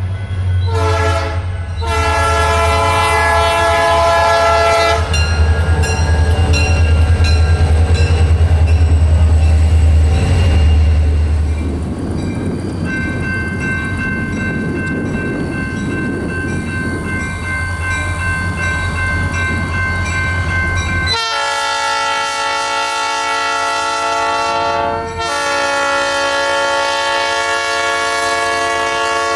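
Nathan P3 three-chime locomotive horn (new-cast bells) blowing a steady, mellow chord: two short blasts, then long blasts over a low rumble and the clack of wheels on rail joints. About 21 seconds in, a loud long horn sounding starts abruptly and holds, with a brief break a few seconds later.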